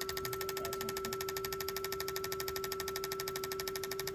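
Fuel-injector cleaner and tester machine running: a steady hum with rapid, even clicking as it pulses the injectors. The injectors are dirty; at least one is just starting to fire.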